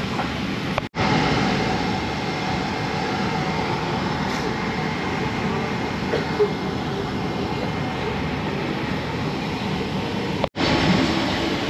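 Steady hiss and hum of an airliner cabin at the gate, from the air-conditioning and ventilation of a Boeing 777-300ER. The sound cuts out abruptly for a split second about a second in and again near the end.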